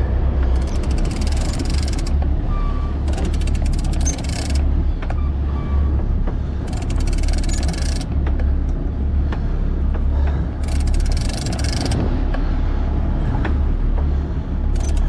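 Boat engine running steadily with a low drone, with bursts of hiss coming and going over it.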